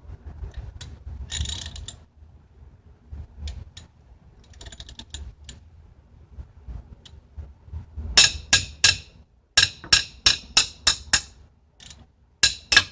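Socket ratchet wrench clicking as a bolt on the front brake is worked: light scattered clicks at first, then about two-thirds of the way in a quick run of a dozen or so loud, sharp ratchet clicks.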